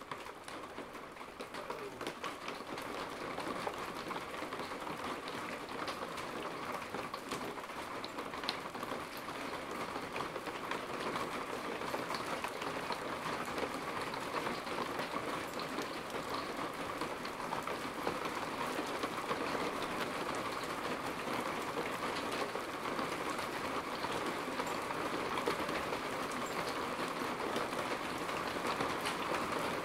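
Steady rain falling outside an open window, a dense hiss of countless fine drops hitting nearby surfaces. It builds over the first few seconds, then holds steady.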